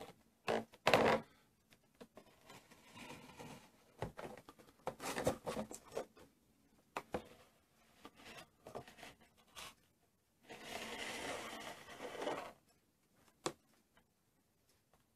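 Hands handling a clear plastic display box: scattered knocks, taps and scratches, the loudest a knock about a second in, and a steady rubbing sound lasting about two seconds later on.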